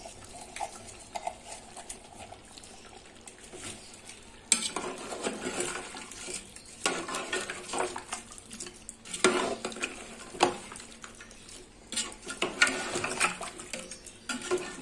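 A long steel spoon stirring chunks of mutton in a large metal cooking pot, scraping and clanking against the pot in repeated bursts from about four and a half seconds in.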